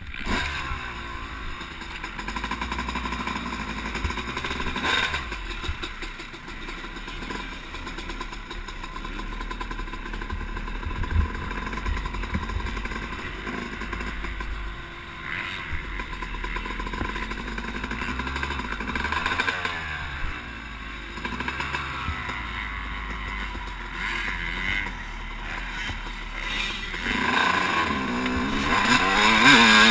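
Motocross bike engine running and revving up and down through the gears on a dirt track. It gets louder and climbs in pitch over the last few seconds, the bike accelerating hard.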